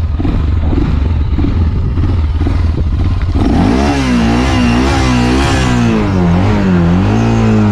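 Quad (ATV) engine running low, then from about three and a half seconds in revved hard, its pitch wavering up and down, as the stuck quad is driven to climb out of a trench.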